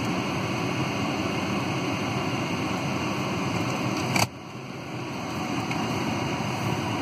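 Steady rushing noise of a car wash tunnel's machinery heard from inside the car's cabin. About four seconds in there is a sharp click, the noise drops suddenly, then slowly builds back up.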